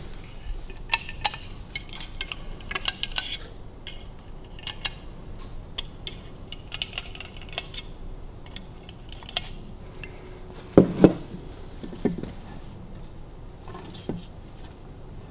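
Scattered small metallic clicks and clinks of a trigger-pump oil can being worked and metal engine parts being handled on a Harley-Davidson WLC 45 engine case, with two sharper knocks about eleven seconds in and another a second later.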